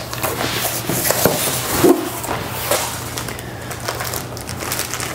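Cardboard and plastic packaging rustling and crunching with many small crackles as a box of accessories is opened and rummaged through by hand.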